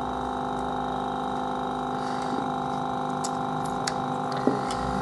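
Steady electrical hum with several even tones, with a few small clicks in the second half, the loudest near the end, from handling small plastic parts.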